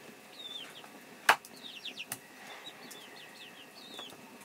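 A heavy knife chopping down onto a wooden block: one sharp chop about a second in, then a lighter one about two seconds in. Birds chirp in short high calls throughout.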